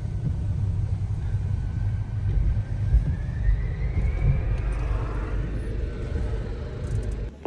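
Low, steady vehicle rumble, with a faint whine rising slowly in pitch over the first few seconds.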